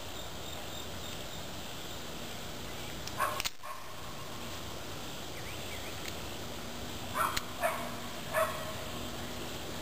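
A single light click about three and a half seconds in: the pistol's hammer falling on a .380 Hornady Critical Defense round that fails to fire, a misfire. Near the end come three short, high calls.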